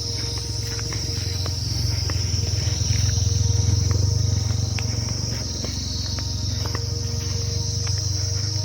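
Insects droning steadily at a high pitch, with a low rumble underneath that swells for a few seconds in the middle and scattered small clicks and ticks.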